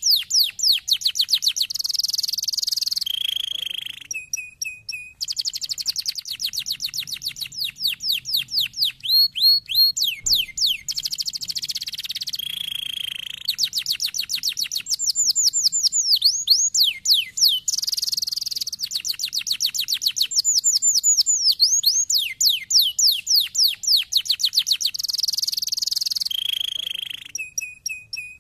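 Domestic canary singing: long, fast trills of repeated downward-sweeping notes, alternating with buzzy rolls and short steady whistles. There is a brief lull about four seconds in.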